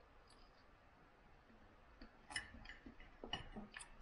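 Near silence, broken in the second half by a few faint clicks of eating: chewing and a knife and fork touching a plate.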